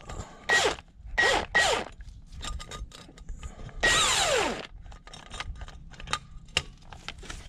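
A power drill turning the bolt of a tailpipe expander inside an exhaust pipe, in four short trigger bursts. In each burst the pitch falls as the motor slows under load, and the last burst is the longest. Light clicking comes between the bursts.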